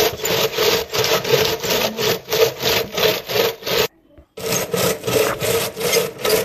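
Hand-lever groundnut shelling machine worked back and forth, crushing peanuts in their shells with a steady rhythm of rasping, cracking strokes, about three a second. The sound drops out for about half a second a little past the middle.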